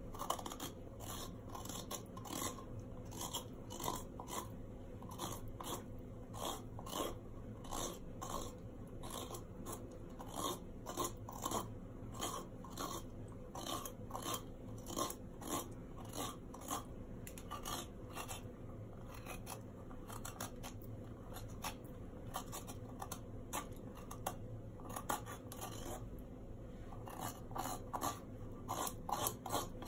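A metal spoon scraping and scooping the flesh out of a round courgette in short repeated strokes, about one to two a second, with a brief pause near the end. The courgette is being hollowed into a thin shell for stuffing.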